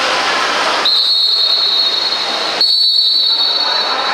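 Referee's whistle in a water polo match: a long blast lasting nearly two seconds, then a second long blast straight after, over the general din of the pool.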